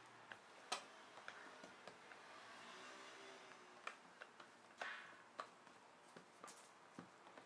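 Very faint, irregular light clicks and taps over a low hiss. The clicks come a second or so apart, with a small cluster about two-thirds of the way through.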